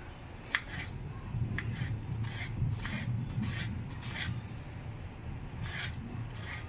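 Kitchen knife slicing a peeled red onion into thin slices on a wooden chopping board: a crisp cut and light knock on the board about every half second, with a pause a little past the middle. There is a low steady rumble underneath.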